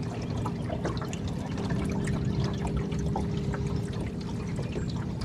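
Small boat motor running with a steady hum, water rushing and splashing along the hull.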